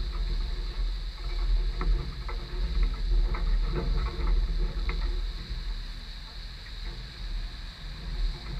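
A steady low rumble with a faint hum, and a cluster of light knocks and taps from chimney-pot work on the roof, bunched between about one and five seconds in.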